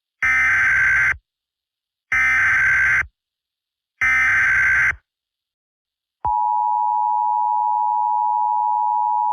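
Emergency Alert System tones: three bursts of about a second each of the SAME digital data header, then about six seconds in the steady two-tone EAS attention signal starts and holds.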